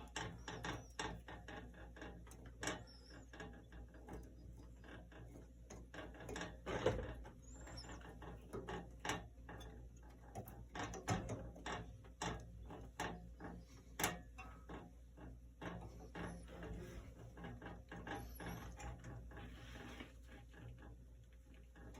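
Irregular light metal clicks, ticks and small knocks from a bandsaw blade and its guides being handled and worked into place on the saw, with a few sharper knocks now and then.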